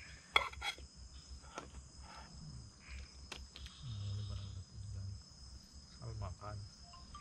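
Night insects trilling steadily in thin high tones, with a few sharp clinks of spoons on metal camp cookware, the loudest about half a second in, and low murmuring voices now and then.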